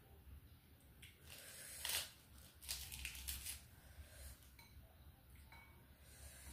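Rice vermicelli noodles being slurped and chewed at close range, in a few short hissing slurps, the loudest about two seconds in.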